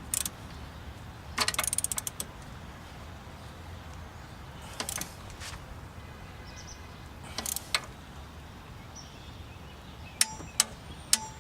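Hand tools working exhaust manifold bolts: a quick run of ratchet-like clicks about a second and a half in, a few separate metal clicks, and several sharp metal clinks with a brief ring near the end.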